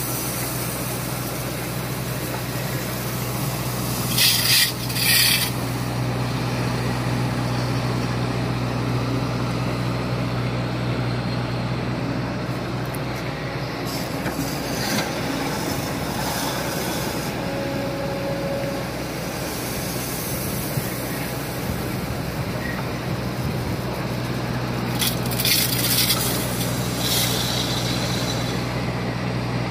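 Kobelco SK140 crawler excavator's diesel engine running steadily under load while it digs and loads gravel, with a short loud rush of gravel about four seconds in and again near the end as bucketloads pour into a dump truck.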